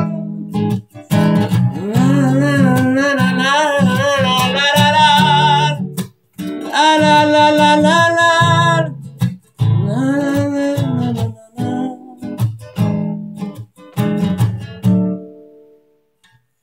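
A man sings held, wavering notes over a strummed classical guitar in three phrases. Near the end the strumming thins out and the song stops.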